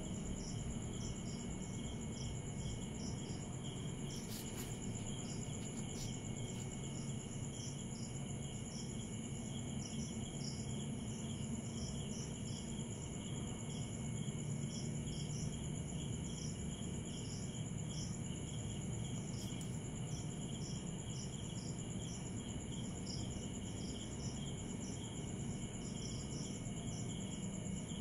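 Night insect chorus of crickets: a steady high-pitched trilling, with one insect chirping in short pulses about once a second over it, above a steady low rumble.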